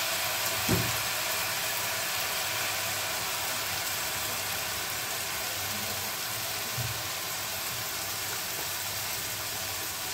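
Rice frying lightly in oil in an open pressure cooker: a steady sizzling hiss, with two soft knocks, one about a second in and one about seven seconds in.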